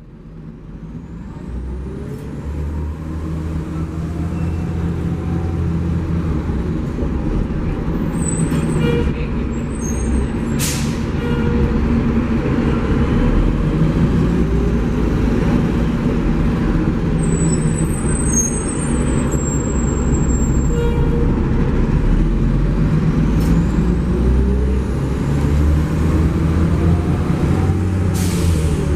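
Cabin sound of a 2003 Neoplan AN440LF bus with its Cummins C Gas Plus 8.3-litre natural-gas engine running steadily, fading up over the first few seconds. Two short, sharp air hisses from the bus's air system come about ten seconds in and near the end, with a brief high squeal past the middle.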